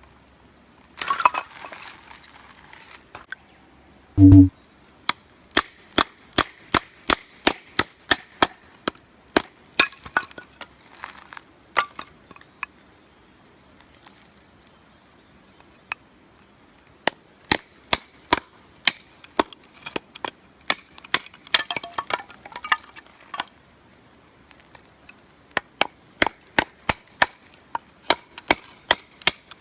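Firewood being split by batoning: a knife is driven into a log with quick, sharp wooden strikes, about two to three a second. There are two runs of strikes with a pause between them, and a single heavy thump comes just before the first run.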